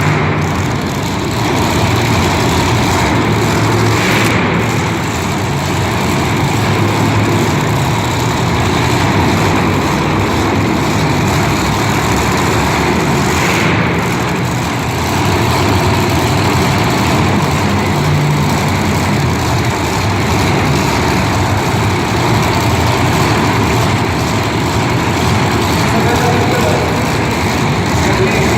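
Monster truck engines running loudly and steadily throughout.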